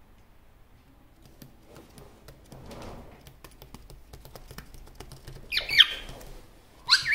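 Superb parrot (Barraband parakeet) chattering to itself: a run of soft clicks and a quiet mutter, then a loud call about five and a half seconds in, and another starting right at the end.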